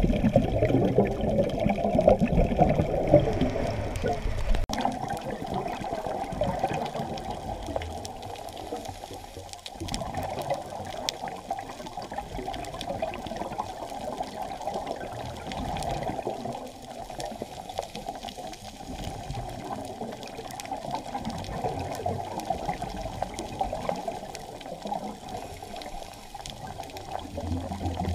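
Muffled underwater bubbling and water rush heard through an underwater camera housing, loudest in the first four seconds and then uneven. The bubbling is typical of a scuba diver's exhaled regulator bubbles.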